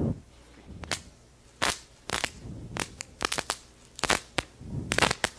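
Steel rod shorted across a single 12 V lead-acid car battery, arcing in a string of sharp, irregular snaps and crackles as sparks fly. The current, roughly 200 to 500 amps, makes sparks but is not enough to weld.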